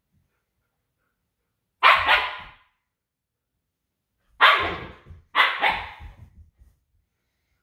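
Siberian husky barking: one loud bark about two seconds in, then two more close together later, each trailing off.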